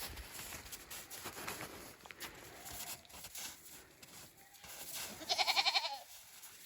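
A goat bleats once, a short quavering call about five seconds in, after soft intermittent rustling.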